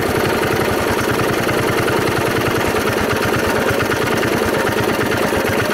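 Old 11 HP gasoline engine on a log splitter running steadily just after a cold start, its exhaust beating in fast, even firing pulses.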